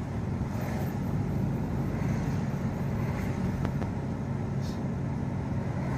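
Car engine and road noise heard from inside the cabin while driving on a wet road: a steady low rumble.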